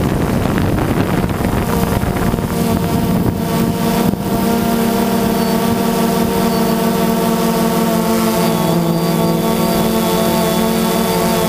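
A DJI Phantom quadcopter's four electric motors and propellers whine steadily at a constant pitch, heard close up from the camera mounted on the drone. Wind noise on the microphone covers the first two seconds or so.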